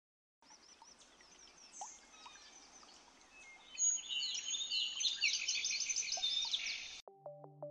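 Birds chirping and singing, several calls overlapping over a faint hiss; the calls grow louder about halfway through, then cut off abruptly as synthesizer music begins near the end.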